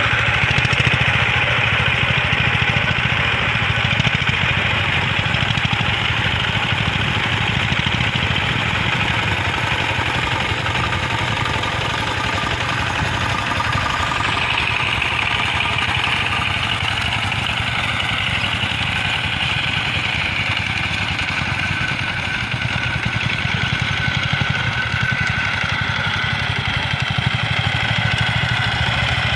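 Two-wheel walking tractor's single-cylinder diesel engine running steadily under load as it ploughs a flooded, muddy rice paddy.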